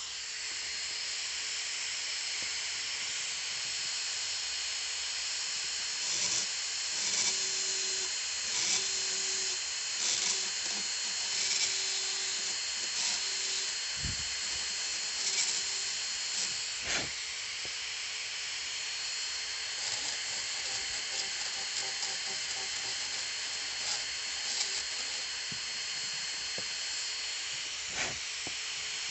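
Dental handpiece running with a steady high whine and hiss, its small inverted cone bur cutting a class I amalgam cavity in an upper first molar. The sound swells and wavers irregularly as the bur bites, with a few brief knocks.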